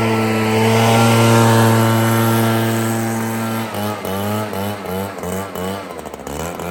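Echo PB-9010 backpack blower's two-stroke engine running at high throttle, steady for about three and a half seconds. Its pitch then dips and recovers several times in quick succession as the throttle is worked, before it holds steady again near the end.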